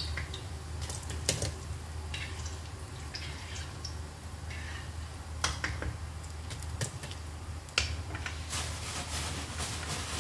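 A few sharp clicks and taps of a metal slotted skimmer being used to scoop burnt bits out of dirty frying oil in a wok, over a steady low hum.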